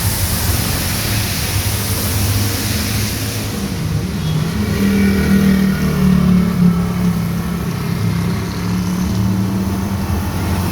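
Heavy rain hissing down, with a motor vehicle engine running past on the street from about four seconds in; the engine's low drone is the loudest sound for most of the rest.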